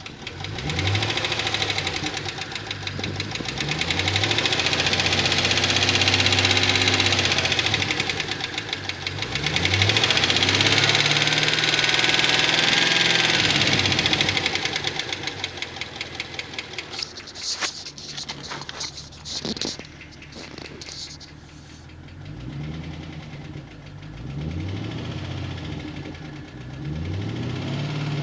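2009 Pontiac G8 GT's 6.0-litre V8 running and being revved up and back down several times, with a fast, even ticking that keeps time with the engine. The owner takes the ticking for lifter tick.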